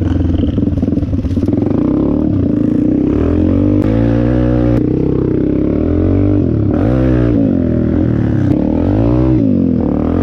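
Dirt bike engine heard on board while riding a trail, revving up and down with the throttle so its pitch repeatedly rises and falls. A few sharp knocks cut through it.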